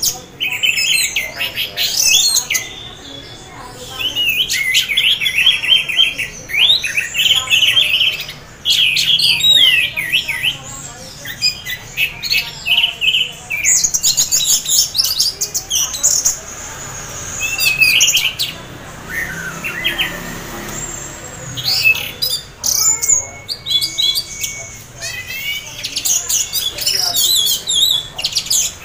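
Orange-headed thrush (anis merah) singing a long, varied song in bursts of quick whistled phrases, with brief pauses. It is a caged bird in half-breeding condition singing in a steady 'teler' flow.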